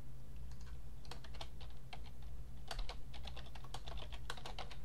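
Computer keyboard typing: irregular key clicks in short bursts, over a steady low electrical hum.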